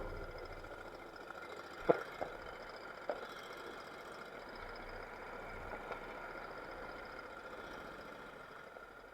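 Small engine idling steadily, just after being coaxed into starting, with a sharp knock about two seconds in and a couple of lighter clicks after it.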